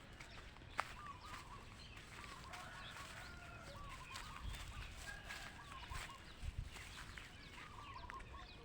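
Chickens calling faintly, with repeated short warbling calls, and a sharp click about a second in.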